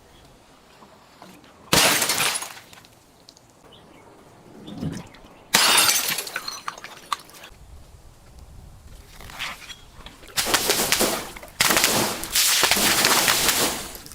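Glass bottles shattering in a series of about five sudden crashes, each trailing off over a second or so, with a couple of quieter crunches between them.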